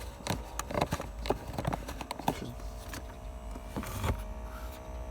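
Ford Focus 2 climate-control cabin air temperature sensor being turned in its dashboard seat: a run of small clicks and knocks, then about halfway through a steady hum from its little suction fan comes up. The hum's loudness depends on the sensor's position, as it resonates through the dashboard.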